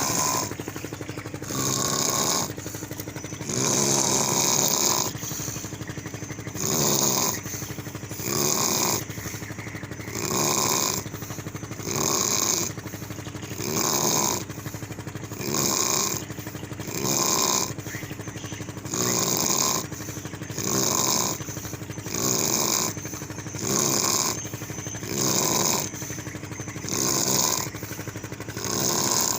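A person snoring in deep sleep, one loud rasping snore about every 1.7 seconds in an even rhythm.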